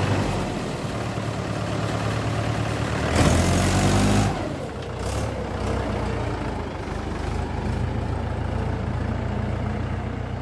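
Mahindra tractor's diesel engine running as it pulls a tipping trailer with its bed raised, revving up loudly for about a second around three seconds in, then settling back to a steady run.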